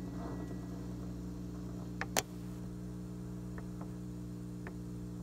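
Steady mains hum from an amplifier left on once the electric guitar stops, with one sharp click about two seconds in and a few faint ticks after it.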